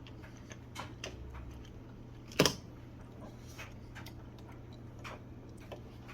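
Small irregular clicks and ticks of a screw being turned in by hand with a manual screwdriver, with one louder sharp click a little over two seconds in.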